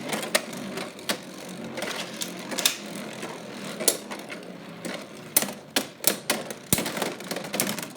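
Beyblade X spinning tops Dransword and Hellsscythe spinning against each other in a plastic stadium: a steady whirring and scraping, broken by sharp clacks as they collide, about ten in all at irregular intervals.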